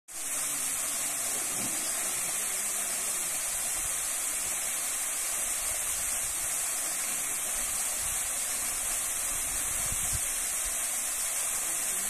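Small waterfall splashing steadily into a rocky mountain stream: a constant, even rush of water with a strong high hiss.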